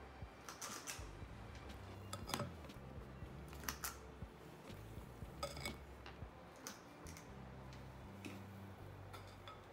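Faint, scattered clicks and scrapes of a metal melon baller against a glass mixing bowl as peanut butter cookie dough is scooped out, about ten light taps spread through the stretch.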